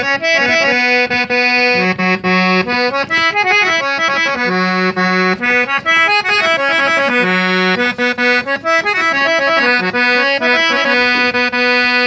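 A free-reed keyboard instrument plays a folk melody over a held low note, settling on a long sustained chord near the end.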